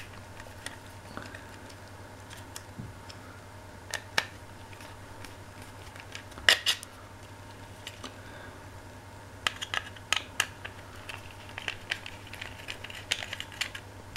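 A small screwdriver undoing the screws that hold the LCD display assembly to a Fluke 175 multimeter's circuit board, giving scattered sharp clicks and taps of metal on metal and plastic. The loudest comes about six and a half seconds in, and a quicker run of small ticks follows later on. A faint steady hum sits underneath.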